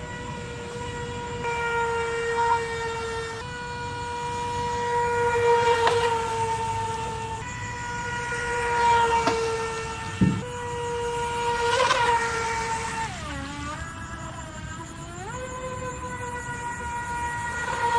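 Feilun FT011 RC speedboat's brushless motor whining at speed, a steady high-pitched tone that swells and fades as the boat runs past. About two-thirds of the way through, the pitch drops and then climbs back.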